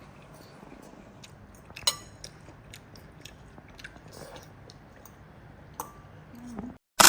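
Someone chewing food quietly, with scattered light clicks and one louder click about two seconds in. The sound cuts off abruptly near the end, with a short loud burst at the cut.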